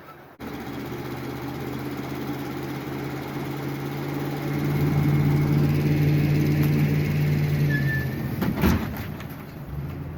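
Engine running steadily with an even hum, getting louder about halfway through, then easing off near the end, with a sharp clunk shortly before it drops.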